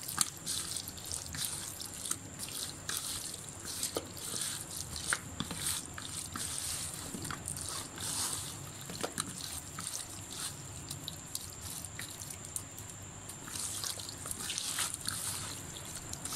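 Raw chicken wings being squeezed and turned by a gloved hand in a wet spice marinade in a plastic bowl: irregular wet squelches, slaps and small clicks.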